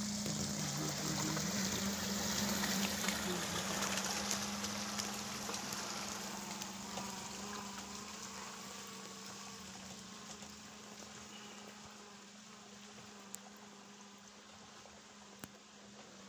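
Small hatchback driving slowly through a flooded, muddy road: a steady engine hum with water swishing and splashing around the tyres, fading steadily as the car moves away.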